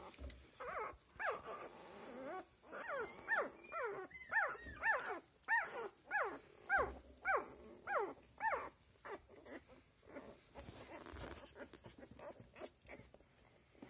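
Week-old Australian labradoodle puppy crying: a run of about fifteen high squeals, each falling in pitch, about two a second, stopping about nine seconds in.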